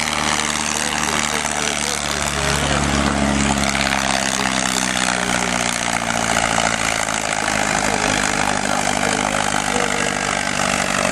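Ford 5030 tractor's diesel engine running hard under load, pulling a weight-transfer sled. The engine note swells and rises about two seconds in, then holds steady under a loud steady hiss.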